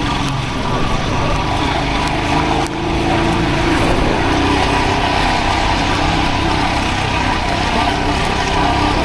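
Steady running of a vehicle engine mixed with wind and road noise, heard on board while driving a rough dirt mountain road.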